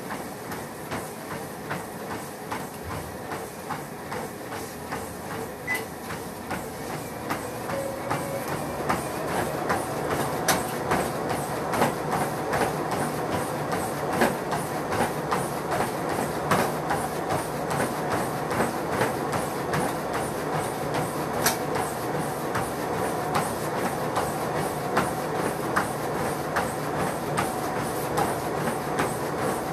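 Running footsteps thudding in a steady rhythm on a treadmill belt, about two to three strides a second, over the treadmill's running hum. The steps get louder from about eight seconds in.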